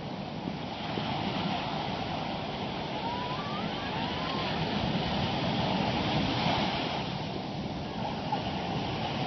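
Ocean surf breaking and washing up the sand in a steady rush that swells a little in the middle.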